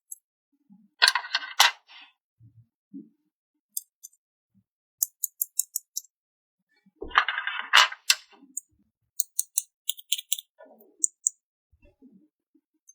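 Small plastic toy pieces and packaging being handled: two bursts of crinkling, about a second in and again near the middle, with scattered light clicks and taps of plastic parts between them.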